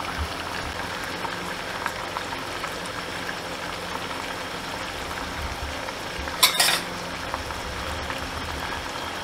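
Chicken pieces and onions frying in oil in a pan: a steady sizzle. A brief clatter comes about two-thirds of the way through.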